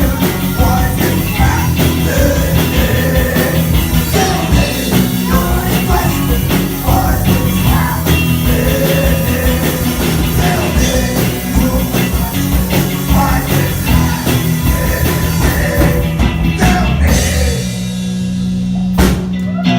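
Live rock band playing an instrumental passage with drum kit and guitars. Near the end the band stops, leaving one held low note ringing.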